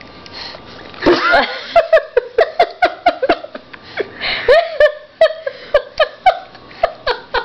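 A woman laughing off camera: a rising burst about a second in, then a long run of quick, short laughs, several a second.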